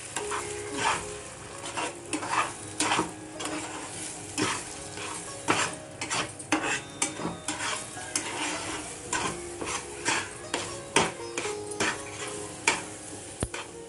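Egg bhurji scrambling in a frying pan: beaten eggs sizzling over fried onion and tomato while a steel spatula stirs and scrapes the pan, with frequent short scraping and tapping strokes over the steady sizzle.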